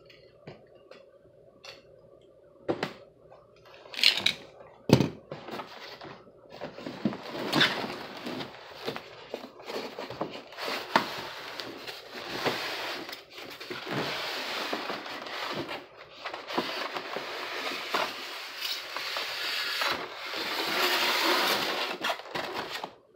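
Unboxing noise from a cardboard retail box and its styrofoam insert: a few knocks and taps in the first seconds, then steady crackly scraping and rustling as the foam insert is slid out and the packaging is handled, loudest near the end.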